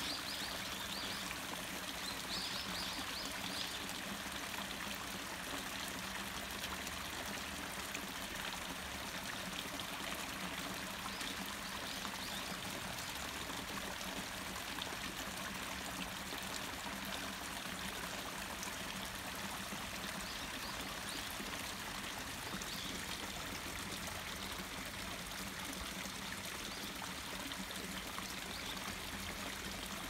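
Water pouring over the low steps of a concrete cascade channel, a steady even rush of splashing water.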